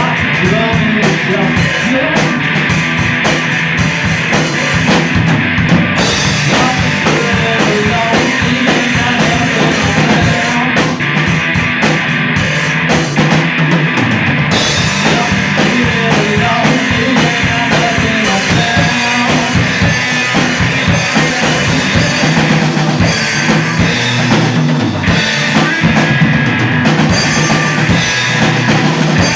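Live rock band playing an instrumental passage: drum kit with bass drum and cymbals driving under electric guitars and bass.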